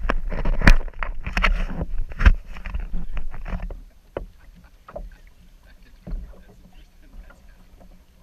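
Handling noise on a kayak-mounted action camera: an arm and hand brushing and knocking against the camera and the plastic kayak, with sharp knocks about a second and two seconds in. After about four seconds it drops to a few faint scattered taps.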